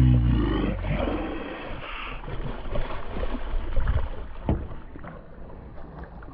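A hooked speckled trout thrashing at the water's surface beside the boat, with uneven splashing and a few sharper slaps. It opens with the tail of a loud, excited shout.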